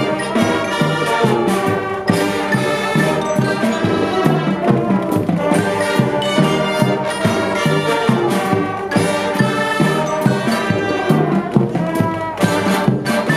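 Marching band playing: brass and saxophones carry the tune over a steady drum beat, with mallet keyboards such as glockenspiel or xylophone in the mix.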